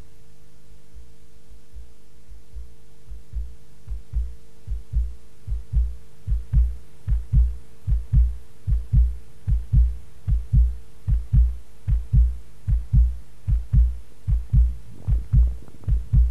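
Analog synthesizer music from three linked Transaudio synths: a steady low drone with a held mid tone, over which a regular low pulse fades in a few seconds in and grows louder, about two to three beats a second. Faint higher clicks join near the end.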